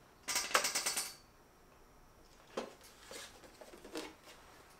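Handling noise of a 3D-printed plastic glider being turned over in the hands: a quick rattle of small clicks and creaks lasting under a second near the start, then a few faint knocks.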